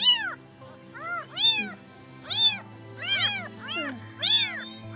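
Young kittens mewing, about seven short high-pitched cries, each rising and then falling in pitch.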